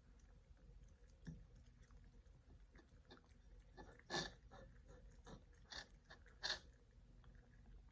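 Cats chewing their food: a run of soft clicking crunches, with three louder crunches in the second half.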